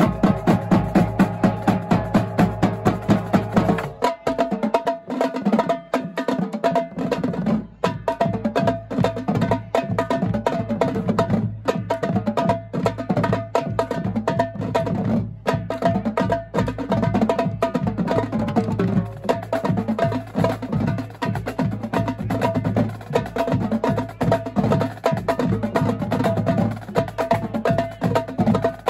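High school marching drumline (snare drums, tenor drums and tuned bass drums) playing a fast, dense cadence. The bass drums' low notes drop out for a few seconds about four seconds in, leaving the snares and tenors, then come back in.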